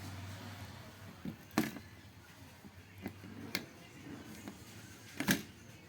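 Hands working on an opened LED TV's circuit boards and cable connectors: three sharp clicks and knocks, the loudest near the end, over a faint low hum.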